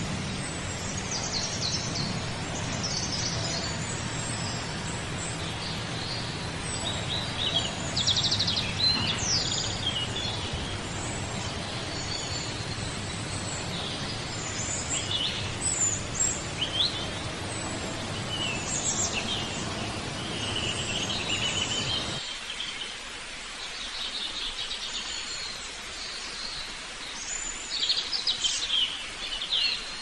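Several songbirds chirping and singing over a steady outdoor background hiss. About two-thirds of the way through, the low background rumble drops away suddenly.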